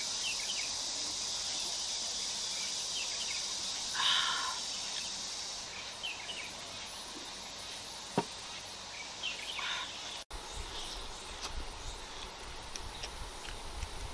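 Steady high-pitched chirring of insects, with a few short clicks and knocks over it. The chirring fades after about six seconds. A brief dropout about ten seconds in is followed by a low rumble.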